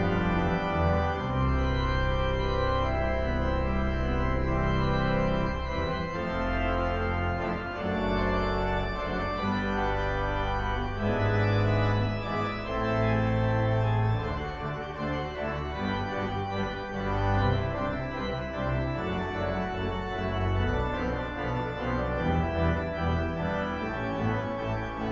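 Organ postlude at the close of a worship service: sustained chords played over a bass line that moves from note to note.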